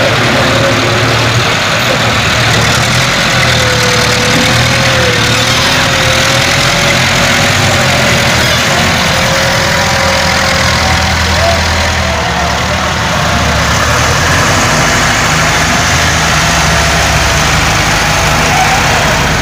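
Diesel farm tractor engines, including a Massey Ferguson 385, running steadily under load as the tractors drag rear scraper blades through loose soil.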